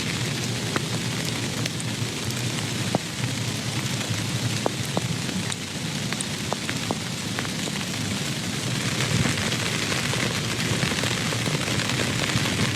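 Steady rain, with scattered sharp ticks of single drops landing.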